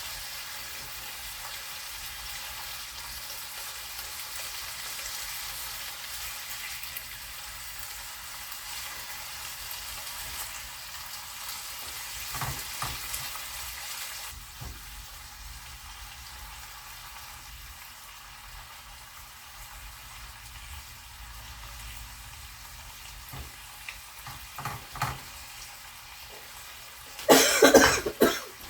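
Chicken pieces sizzling in hot oil in a frying pan, a steady hiss that softens about halfway through, with a few light knocks. Several loud sudden bursts near the end.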